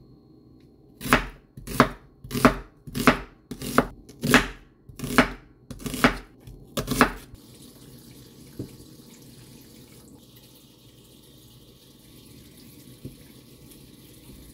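Kitchen knife slicing an onion on a wooden cutting board: about ten crisp chopping strokes, roughly one and a half a second, that stop about halfway through. A faint steady hiss follows.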